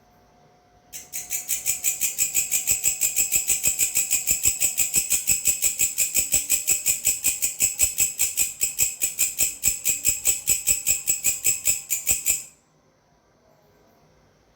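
A belalang (grasshopper-type insect) stridulating: a fast, even train of high-pitched chirps, about six a second, that starts about a second in and stops abruptly near the end.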